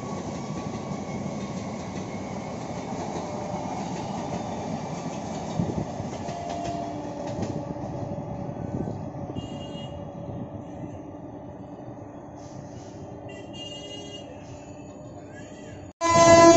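Eastern Railway EMU local train running on the tracks: a steady rumble of wheels on rail that slowly grows quieter. Near the end, after a sudden cut, a loud train horn with several pitches sounds.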